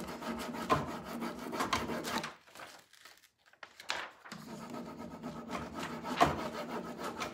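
Hands rubbing a rub-on transfer's plastic carrier sheet against a painted wooden bench: scratchy rubbing in two stretches with a short pause in the middle, and a few sharp taps.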